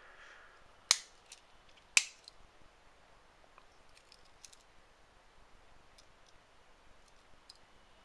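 Two sharp metallic clicks about a second apart, a Swiss Army knife's tool snapping against its back spring, followed by a few faint light ticks of handling.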